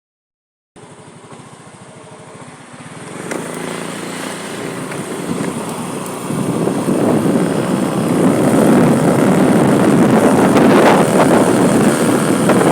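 Motor vehicle engine running, with a rushing noise that grows louder from about six seconds in.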